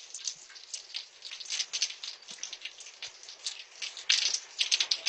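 Irregular crackling patter of many small ticks, denser about four seconds in, through a doorbell camera's low-quality microphone.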